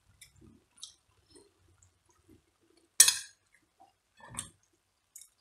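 Metal spoon clinking against a china plate: one sharp clink about three seconds in, then a softer knock just over a second later as the plate is handled.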